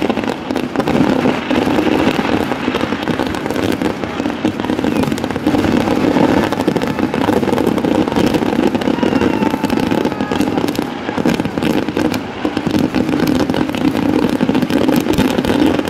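Kerala temple-festival fireworks (vedikkettu): a continuous rapid barrage of firecrackers and shells going off, a dense unbroken crackle of bangs at a steady loud level.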